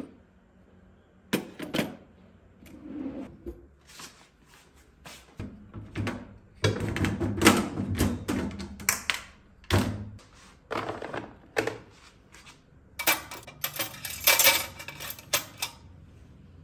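Irregular knocks, taps and clattering of hard objects being handled, in uneven clusters with short pauses between.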